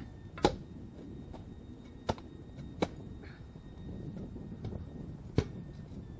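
Spade chopping into woodland soil: four sharp strikes spread unevenly over a few seconds, with a few fainter scrapes and clicks between them.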